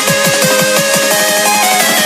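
Background electronic music with fast, dense drum hits and a melodic synth line.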